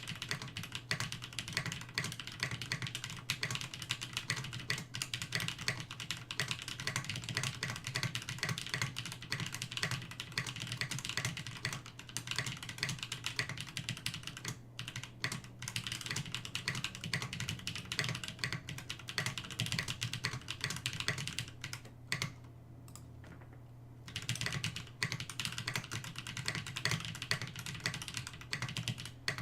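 Steady fast typing on a Rama M65-A aluminium 65% mechanical keyboard with lubed 78 g Holy Panda tactile switches and doubleshot keycaps, a dense run of rounded key clacks, with a pause of about two seconds near the end before typing resumes.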